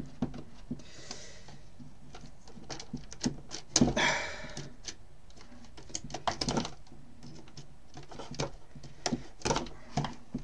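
Handling noise from the plastic motor-and-fan unit of a Dyson Airblade hand dryer being moved and turned on a workbench: scattered clicks and knocks of hard plastic, with a short rustle about four seconds in.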